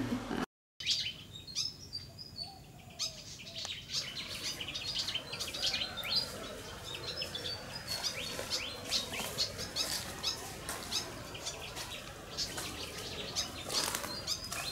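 Tropical forest ambience with many birds chirping: short, high calls come thick and fast, after a brief dropout about half a second in.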